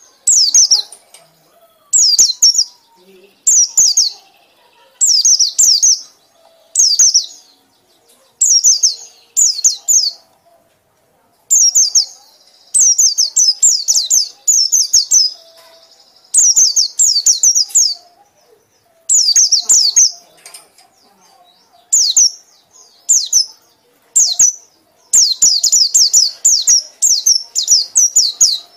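White-eye (pleci) singing its chattering 'ngekek' song: repeated bursts of rapid, high, falling notes, each burst about a second long with short gaps between them, coming thicker and faster near the end.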